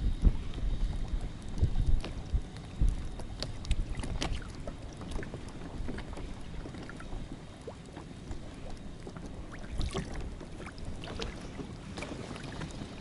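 Choppy water slapping and lapping against the side of an inflatable boat, with irregular knocks and splashes and wind buffeting the microphone. It is loudest in the first few seconds, then settles to a steadier wash.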